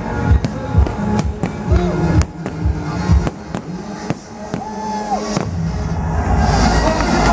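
Fireworks bursting in a rapid run of sharp bangs over loud electronic dance music; about five and a half seconds in the bangs stop and the sound swells.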